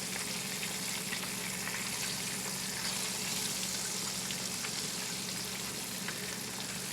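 Boneless pork loin chops frying in hot oil in a pan: a steady sizzle with faint scattered pops.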